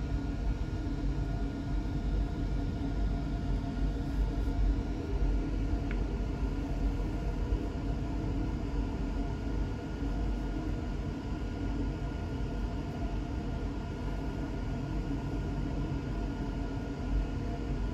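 Empty coal hopper cars of a CSX freight train rolling past on the rails: a steady low rumble with faint thin tones held above it.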